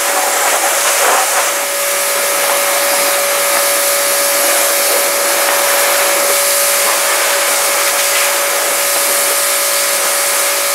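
Pressure washer spraying steadily: the water jet hisses over a steady motor hum as it rinses degreaser out of an engine bay.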